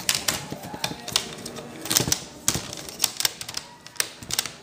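Quick, uneven run of sharp plastic clicks and taps as an Asus Eee PC netbook's casing pieces are pressed and snapped back together by hand.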